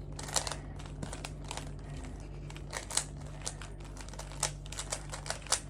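3x3 Rubik's cube being turned by hand, its plastic layers clicking and clacking in quick, irregular twists.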